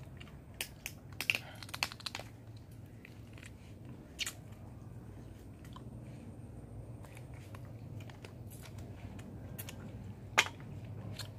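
Someone chewing and crunching on grilled chicken feet eaten by hand. There is a quick run of sharp crunching clicks about a second in and a single sharp click near the end.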